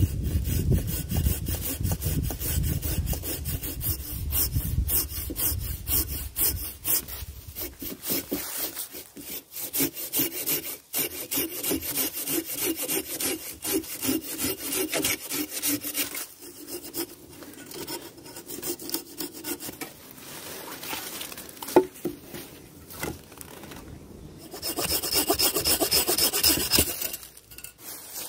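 Silky Outback BigBoy folding saw cutting through deadfall branch wood: quick back-and-forth strokes in several runs with short pauses, the strongest run near the end.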